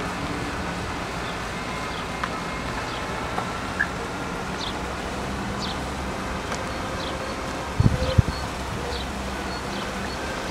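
Outdoor road ambience: a steady low hum with a faint buzzing tone, over which short high bird chirps repeat every second or so. A few dull thumps come about eight seconds in.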